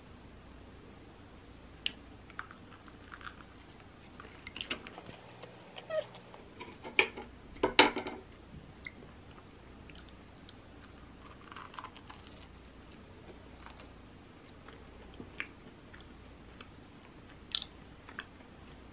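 Close-up eating sounds: biting and chewing a crunchy open sandwich on toasted bread. Scattered crackles and a few sharp clicks come through, busiest and loudest about five to eight seconds in.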